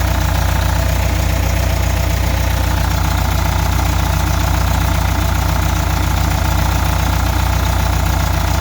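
Air-cooled flat-four engine of a 1971 VW Super Beetle Autostick idling steadily, fully warmed up, with a little bit of a knock to it that the owner thinks will be all right.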